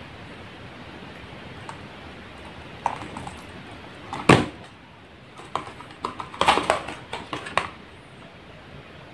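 Empty Ovaltine milk carton being slid up off a moulded block of milk pudding and handled: one sharp knock a little after four seconds in, then about a second of crackling carton noise.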